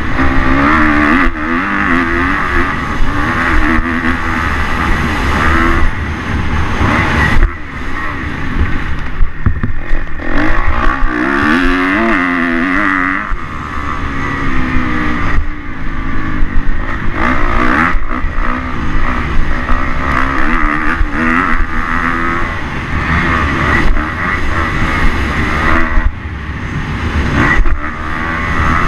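Kawasaki KX250 motocross bike's engine revving up and down as it is ridden hard around a dirt track, with short drops where the throttle is shut, heard from an onboard camera with wind rumbling on the microphone.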